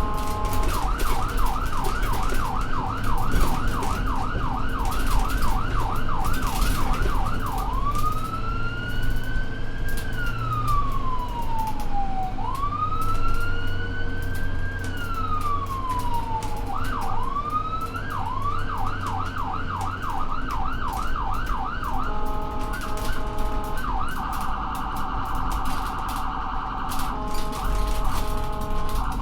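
Ambulance siren on a moving vehicle, switching between modes. It opens with a fast yelp of about three sweeps a second, then moves into a slow rising-and-falling wail. After that comes the yelp again, and then a steady tone broken for a few seconds by a very rapid warble. Low engine and road rumble runs underneath.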